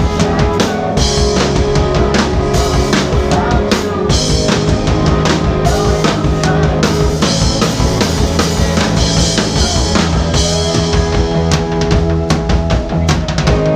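Live rock band playing an instrumental passage: a drum kit with kick and snare keeping a steady beat under sustained amplified guitar and bass.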